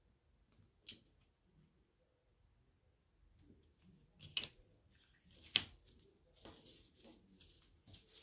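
Hand-work on a craft table: a few sharp clicks and snips, the loudest two about a second apart midway, with light scratchy rustling of a transfer sheet in the second half.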